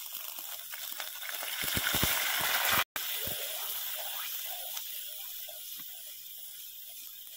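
Hot ghee tempered with bay leaf sizzling as it meets the wet khichdi: the tadka being added. The hiss grows to its loudest just before three seconds in, cuts out for an instant, then slowly dies away as the ghee is stirred in, with a few soft knocks of the ladle.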